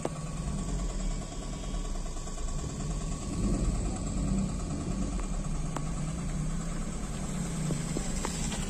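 Car engines idling and creeping along at low speed, a steady low rumble heard from inside a car's cabin.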